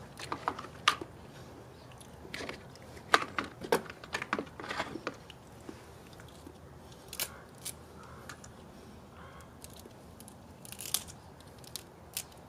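Cooked California pink crab shell being cracked and peeled apart by hand: irregular crunches, snaps and clicks, busiest in the first five seconds and sparser later.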